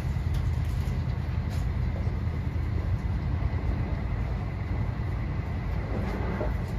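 Running noise of a Meitetsu limited express train heard inside the passenger car: a steady low rumble of wheels on rail with a faint constant high tone.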